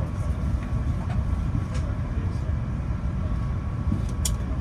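Steady low rumble of an Airbus A350's cabin, with a few light clicks and a sharper click near the end.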